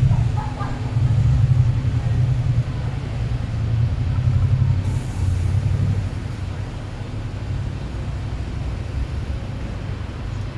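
City street traffic: a low rumble of passing cars and buses that swells and fades over several seconds, with a brief high hiss about five seconds in.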